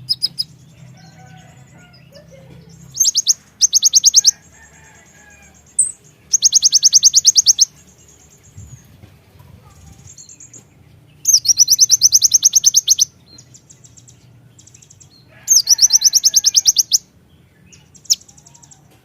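Kolibri ninja (konin) sunbird singing: loud, very fast high-pitched trills in bursts of one to two seconds, about six of them, with faint chirps from other birds in the gaps and a steady low hum underneath.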